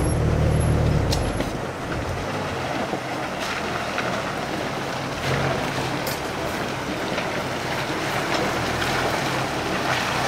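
A Jeep engine drones close for about the first second. Then comes the steady rush of a shallow rocky creek, with a Jeep Wrangler's engine running low beneath it as the Jeep fords the stream at a crawl, plus a few light knocks and splashes.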